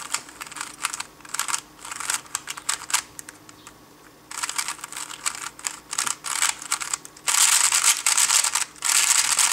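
A 3x3 Rubik's speedcube being turned fast with fingertricks: rapid plastic clicks and clacks as the layers snap round. It is sparse at first, then comes in two quick, dense bursts of turning in the second half.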